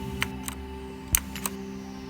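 A few separate sharp clicks of the ViewSonic KU520's blue mechanical key switches being pressed, over steady background music.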